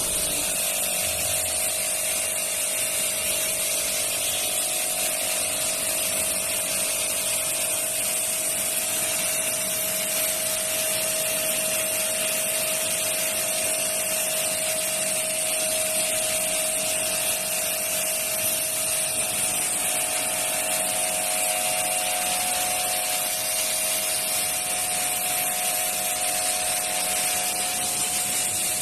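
Electric high-pressure washer (1280 W) running steadily: the motor and pump give a constant whine while the jet of water hisses.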